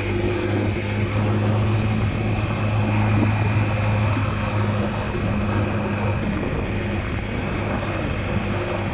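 Scooter engine running at a steady speed while riding, a constant drone with road and wind noise.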